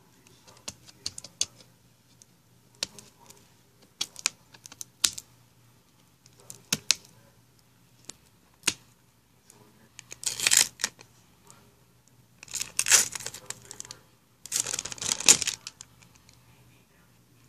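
Small plastic juice bottle handled, its thin plastic label being peeled off: scattered light clicks and crackles of plastic under the fingers, then three longer, louder bursts of crackling plastic in the second half.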